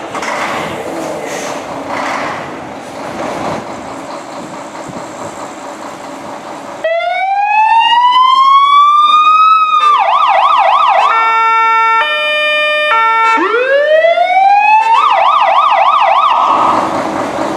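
Electronic siren of a MAN high volume pump fire engine, sounding over the truck's idling diesel engine. About seven seconds in it starts with a rising wail, switches to a fast yelp, then to a two-tone hi-lo, then another rising wail and yelp, and cuts off suddenly near the end.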